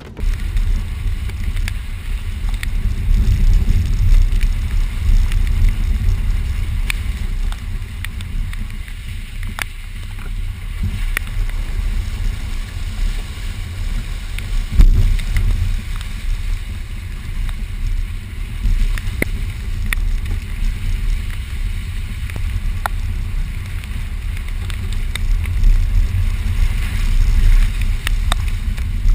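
Subaru Forester driving over a rough off-road trail: a continuous low rumble with scattered knocks and clicks throughout.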